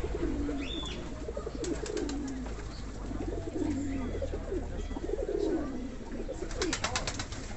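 Show pigeons cooing in a loft: a run of low coos, each falling in pitch, about one a second. A quick run of sharp clicks comes near the end.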